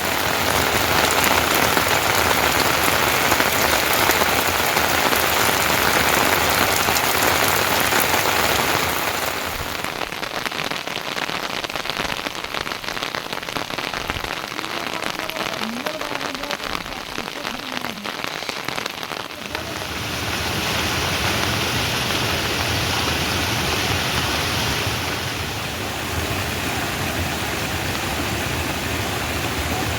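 Heavy rain falling and pattering steadily on surfaces, a dense hiss that shifts in loudness and character about a third and two thirds of the way through.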